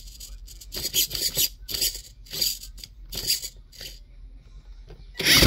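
A small steering servo in a toy RC truck whirring in short raspy bursts as it swings the front wheels back and forth. The loudest burst comes just before the end.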